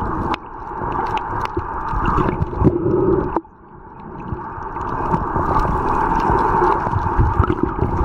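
Muffled underwater noise picked up by a submerged camera: a steady rushing rumble with scattered crackling clicks. It cuts out sharply twice and swells back up over a second or two.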